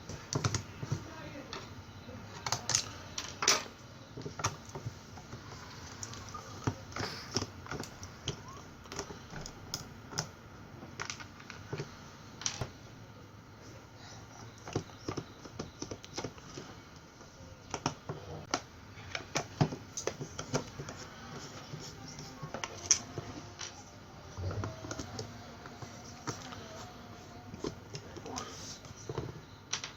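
Irregular clicks, taps and knocks from a screwdriver and a plastic motorcycle digital meter housing being handled on a workbench while its screws are taken out.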